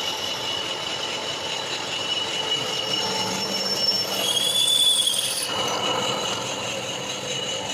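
Machine tool cutting metal, with a steady high-pitched squeal that swells louder and higher for about a second and a half midway, then drops back.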